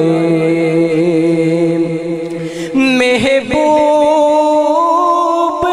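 A male reciter singing a naat into a microphone, drawing out long held notes in a chant-like style; about three seconds in the line breaks and he moves to a new, higher note and holds it.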